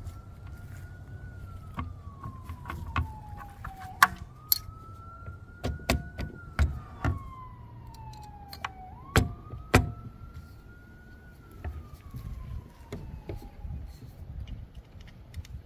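Faint emergency-vehicle siren wailing in three slow cycles, each rising quickly and then falling away over a few seconds, the last dying out near the end. Sharp clicks and knocks from handling the electric scooter's handlebar and stem parts, loudest about four and nine seconds in.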